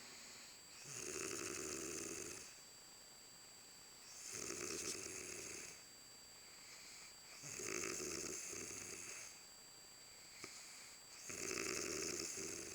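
A woman snoring loud, four long snores about three and a half seconds apart, each lasting about a second and a half.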